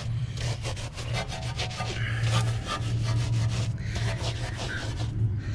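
A wheel brush scrubbing inside the barrel of a wet, soapy alloy wheel, with quick back-and-forth rubbing strokes that run on steadily. A steady low hum lies underneath.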